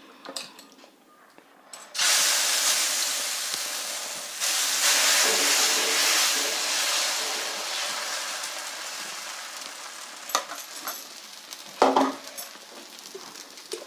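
Millet adai batter sizzling on a hot dosa griddle as it is ladled on: the hiss starts suddenly about two seconds in, grows louder again a couple of seconds later, then slowly fades as the ladle spreads it in circles. A few light clicks near the end.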